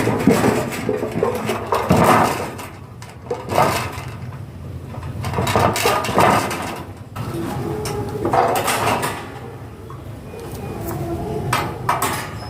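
Irregular knocks, clatter and scraping of building work with wood.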